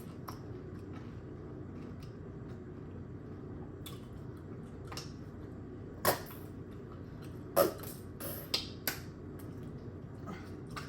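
Doritos nacho chips crunching as they are bitten and chewed: a few sharp crunches, the loudest about six and seven and a half seconds in, over a steady low hum.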